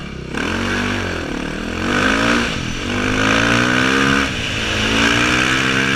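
KTM EXC 530's four-stroke single-cylinder engine accelerating up through the gears. Its pitch climbs and drops back at each of about three shifts.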